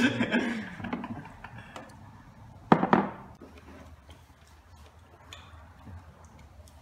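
A single sharp knock on a hard surface about three seconds in, then faint scattered clicks of chopsticks and tableware.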